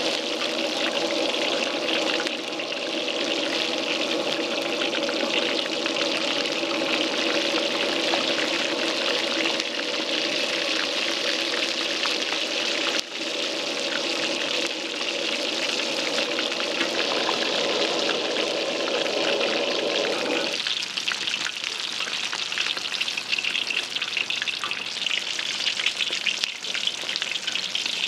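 Whole flying fish deep-frying in a wok of hot oil: steady sizzling and crackling of bubbling oil. A steady hum underneath stops suddenly about twenty seconds in.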